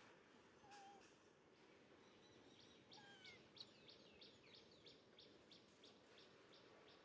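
Faint outdoor quiet with a bird calling in a series of short, high chirps, about three a second, starting a couple of seconds in.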